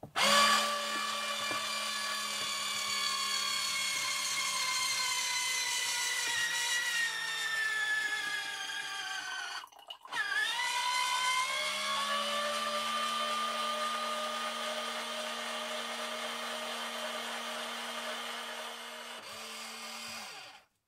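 Small USB-rechargeable electric orange juicer running as it squeezes an orange: a steady motor whine over a low hum, its pitch slowly sinking. About halfway through it stops for about half a second, starts again and runs until it cuts off near the end.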